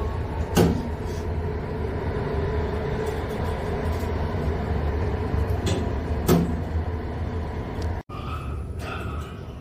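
Elevator running: a steady low rumble with a hum, broken by two sharp knocks, one about half a second in and one about six seconds in. Just after eight seconds the sound cuts off abruptly and a quieter, different stretch with a few short higher noises follows.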